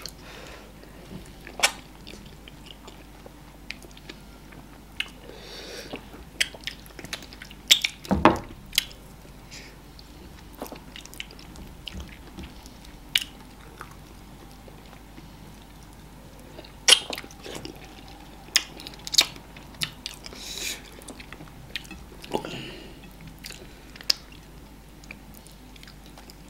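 Close-miked eating of amala and ogbono soup with meat by hand: irregular wet lip smacks, clicks and chewing. The loudest smacks come about eight and seventeen seconds in.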